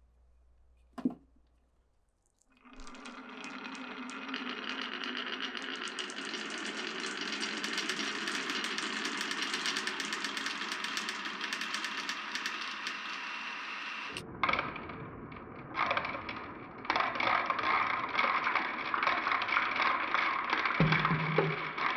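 Glass marbles rolling and clattering along a marble run. One click about a second in, then a steady dense rattle of rolling marbles from about three seconds in. Around fourteen seconds the sound changes abruptly to a louder, more clattery rolling with sharp knocks.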